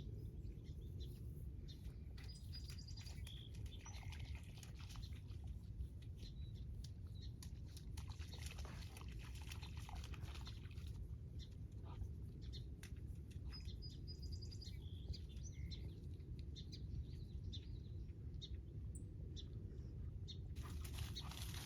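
Birds chirping faintly here and there over a steady low rumble, with scattered light clicks and patter.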